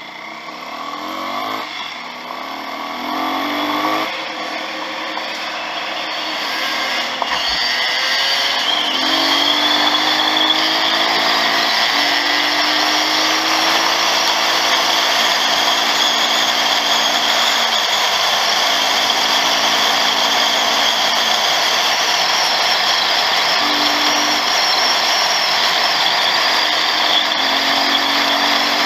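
Dirt bike engine revving up through the gears, its pitch climbing in quick steps over the first few seconds, then running hard at a steady pace with brief dips at gear changes. A broad rushing noise grows louder over the first eight seconds and then holds.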